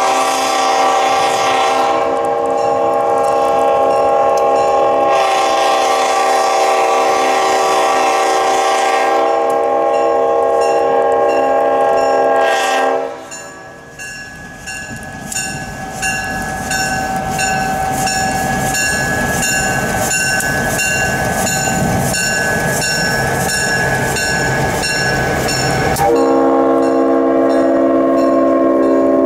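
Diesel locomotive air horn blowing a long chord for a grade crossing, with short breaks, then stopping about 13 seconds in. The EMD GP7's engine then rumbles past with a crossing-signal bell ringing at an even beat, and the horn sounds again loudly near the end as the locomotive passes.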